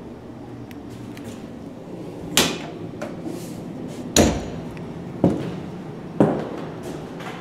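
Footsteps on a hardwood floor: four sharp knocks, starting about two seconds in and roughly a second apart.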